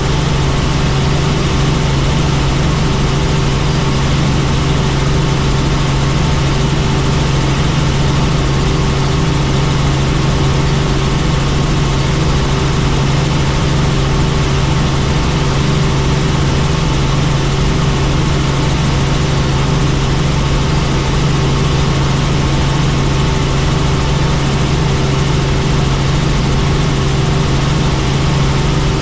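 Helicopter in flight: a loud, steady drone with a strong low hum and a few fainter steady tones over a wide rushing noise.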